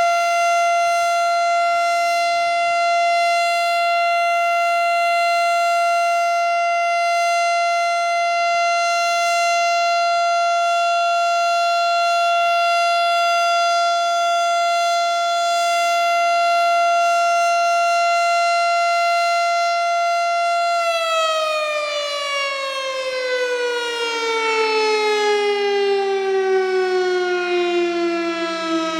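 Federal Signal STH-10 outdoor warning siren sounding a steady tone for a tornado-drill siren test, then winding down about three-quarters of the way through, its pitch falling steadily to the end.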